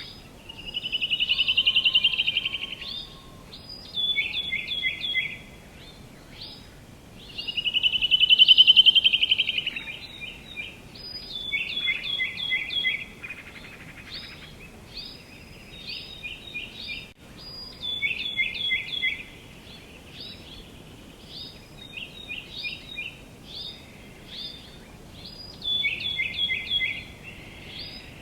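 Songbirds singing and calling: runs of short, quick chirps throughout, with two louder trilled phrases, one near the start and one about eight seconds in, over a faint outdoor background hiss.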